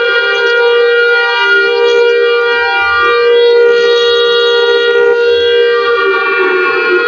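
Emergency Alert System alarm tone: one loud, buzzy pitch with many overtones, held steady, with a brief slight dip in pitch about a second and a half in.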